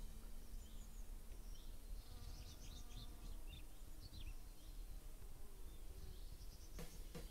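Faint outdoor ambience: a steady low rumble with short, high, downward-gliding chirps through the middle, and a run of sharp clicks starting near the end.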